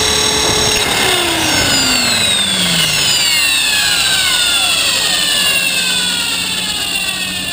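Electric motor and rotor of a T-Rex 450-clone RC helicopter spooling down on the ground: the steady whine starts dropping in pitch about a second in and keeps falling as the rotor slows.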